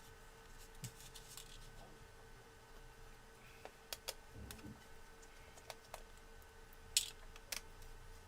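Scattered clicks and knocks of an Acer Aspire One D250 netbook being handled, the loudest about seven seconds in, over a faint steady hum from the running netbook, whose cooling fan was brought in for humming and growling.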